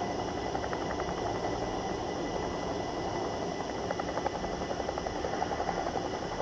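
CH-47 Chinook tandem-rotor helicopter hovering low, a steady rumble with a thin high whine and the rapid beat of its rotor blades, which grows stronger about four seconds in.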